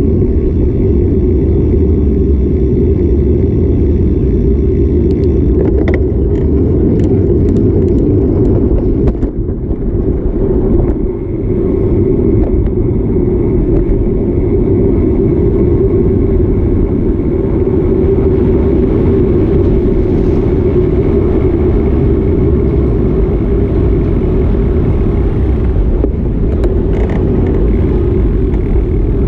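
Loud, steady low rumble of wind buffeting a bicycle-mounted action camera's microphone while riding, mixed with city street traffic. It dips briefly about ten seconds in, and a few faint clicks come through.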